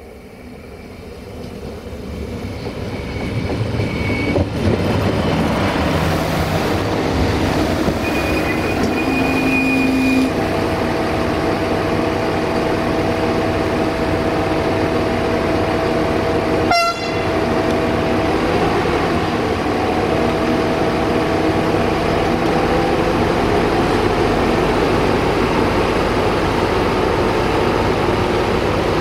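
Siemens Desiro VT642 diesel multiple unit approaching and passing close by, the rumble of its underfloor diesel engine and wheels on the rails growing louder over the first few seconds, then holding steady with a running whine. It is moving under power from only one of its two traction engines.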